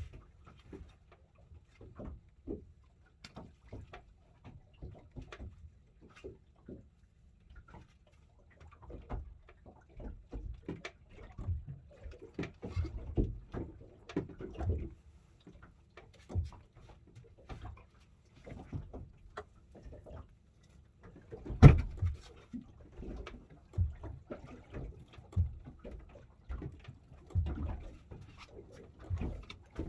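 Irregular knocks, bumps and handling noises on a small fishing boat, with one sharp, loud knock about twenty-two seconds in.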